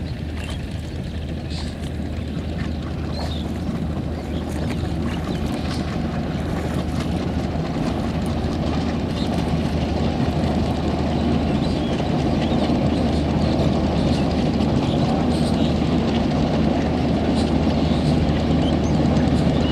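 WDM3A diesel locomotive running with a passenger train, a steady low engine drone and rolling noise that grows louder as the train draws near and its coaches pass.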